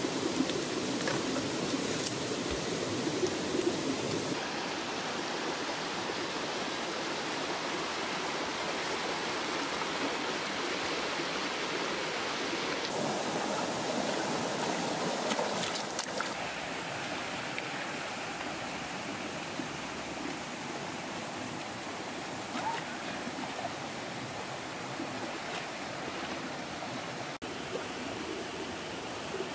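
Shallow rocky stream running, a steady rush of water over stones, with a few sharp crackles in the first seconds.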